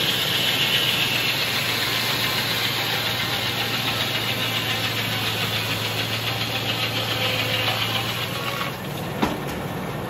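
Circular sawmill running steadily, its engine giving a low, even hum under a higher hiss that fades over the first few seconds. A single sharp knock comes about nine seconds in.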